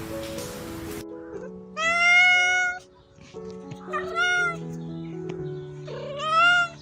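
A cat meowing three times, the first call the longest, over background music.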